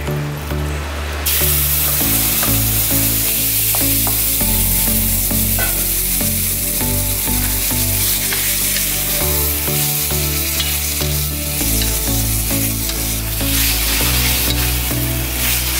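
Marinated sliced beef belly sizzling as it sears in a hot oiled pan, turned with a wooden spatula. The sizzle comes in about a second in and holds steady, with background music underneath.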